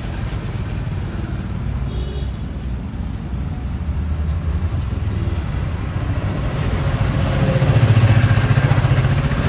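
A motor vehicle engine running close by amid street traffic: a low, rapidly pulsing rumble that grows louder over the last few seconds.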